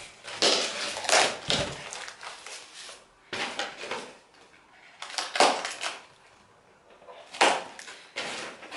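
Cardboard packaging being handled and torn open: several short bursts of scraping and ripping, separated by quieter pauses.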